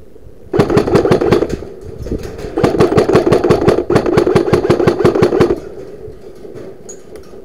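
Electric airsoft rifle (AEG) firing on full auto in two bursts, a short one of about a second, then one of about three seconds, with its gearbox motor whirring under the rapid clatter of shots.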